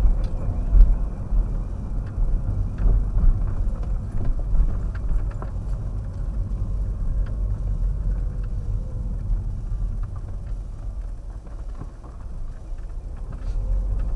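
Car driving slowly, heard from inside the cabin: a steady low rumble of engine and tyres, with a few light knocks and rattles.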